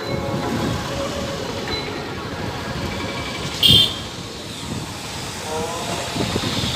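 Steady street traffic and road noise heard while moving along a street, with one short, loud, sharp sound about halfway through.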